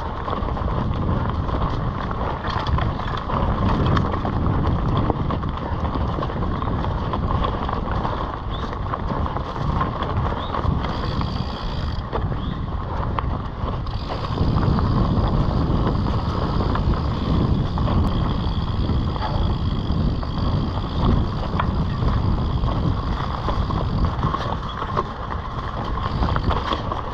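A mountain bike rolling along a dirt singletrack: steady tyre rumble and rattling of the bike over the trail, with wind buffeting the microphone. The rumble gets louder and rougher about halfway through.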